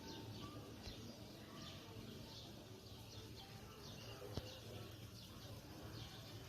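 Faint birds chirping in the background, many short repeated chirps, over a steady low hum, with a single sharp click about four seconds in.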